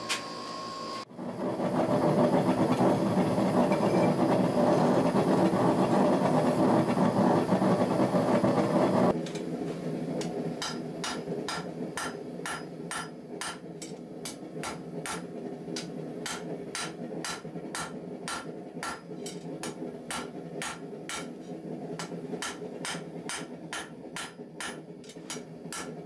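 A small firebrick forge running with a loud steady roar as it is lit. After that, a hand hammer strikes red-hot knife steel on an anvil, about two blows a second, with the forge still running underneath.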